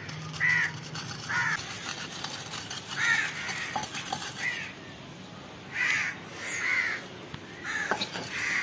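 A crow cawing over and over, several short harsh calls spaced irregularly, with faint knocks of a wooden pestle pounding coriander seeds in a clay mortar.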